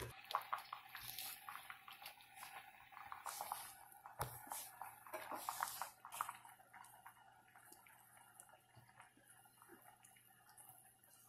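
Pot of soup simmering, with small bubbling and dripping pops and a ladle moving through the liquid for the first few seconds. After about six seconds the sound thins to scattered soft pops.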